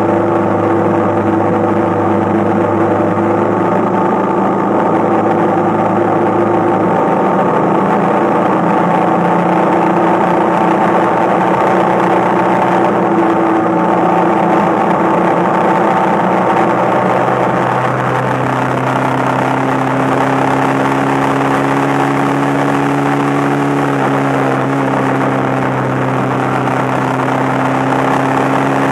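Motorcycle engine running at a steady cruising speed under rushing wind and road noise. Its note steps up a little about two-thirds of the way through.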